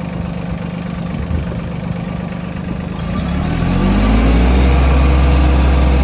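An engine idling steadily, then revving up about three seconds in and holding at a higher, louder speed.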